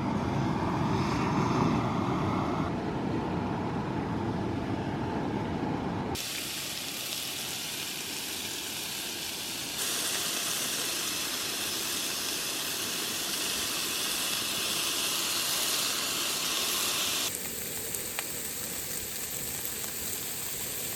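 Flameless heating pack reacting with water, giving off a steady steaming hiss and fizz. The hiss changes character abruptly three times.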